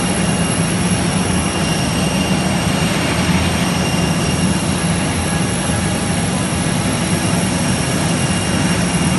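Jet airliner turbine noise on the apron: a steady, loud roar with a constant high-pitched whine over it.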